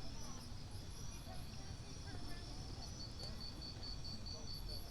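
Insects chirping: a high, evenly repeated chirp, about five a second, which sets in strongly about three seconds in, over a low background rumble.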